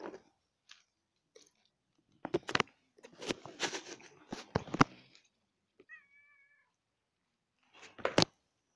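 Cats eating dry cat food, with bursts of sharp crunching and clicking, and one short, steady meow a little past the middle.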